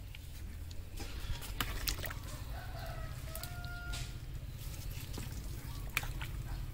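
A rooster crows once, about two and a half seconds in, a held call of about a second and a half. Sharp clinks of a metal ladle against a metal wok come several times, the loudest near the end.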